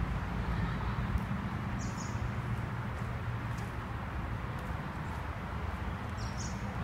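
Steady outdoor background noise with a low rumble, and two faint, brief high bird chirps: one about two seconds in and one near the end.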